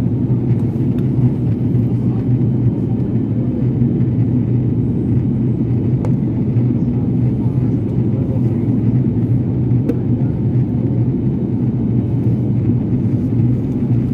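Steady airliner cabin noise in flight: a constant low rumble of the jet engines and airflow, heard from inside the passenger cabin.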